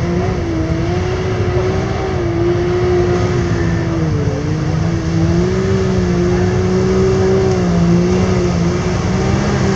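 Can-Am Maverick X3's turbocharged three-cylinder engine running hard at high revs, the pitch wavering up and down and dipping briefly about four seconds in.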